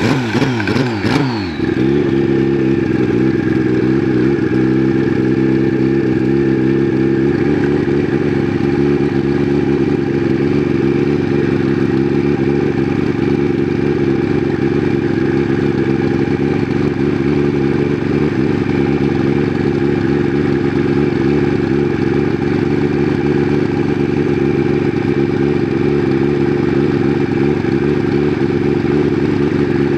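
Turbocharged Suzuki Hayabusa 1300 inline-four drag bike engine: its revs fall away in the first second and a half, then it idles steadily.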